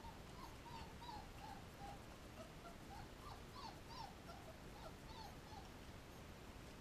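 Newborn puppies whimpering: a string of short, faint squeaky cries, two or three a second, that stop about a second before the end.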